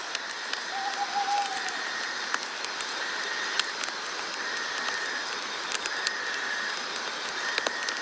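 Night-time nature-sound ambience: an even hiss with scattered sharp ticks, and a high buzzing call that comes and goes in short bouts.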